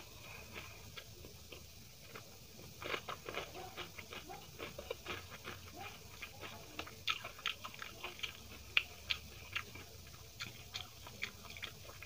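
Close-miked chewing of a mouthful of hand-mixed rice: wet, irregular mouth clicks and smacks. It is quiet for the first two or three seconds, then the clicks come thick and fast.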